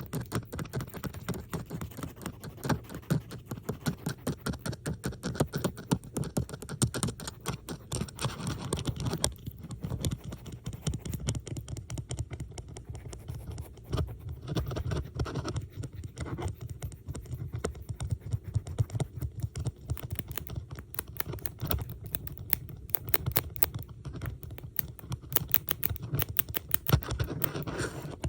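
Metal bobby pins being handled close to the microphone, with dense, rapid clicking and scratching, two recordings layered over each other.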